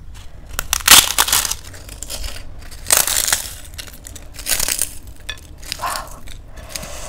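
A crisp fried papad being crushed by hand over a plate of rice, crackling and snapping in about four bursts, the loudest about a second in and about three seconds in.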